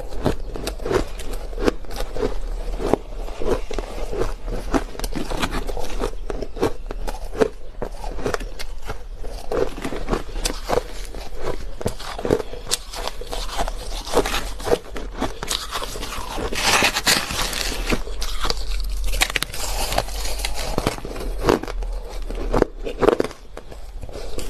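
Crushed ice being bitten and chewed close to the microphone: a dense run of irregular, crisp crunches, with a louder grinding stretch about two-thirds of the way in.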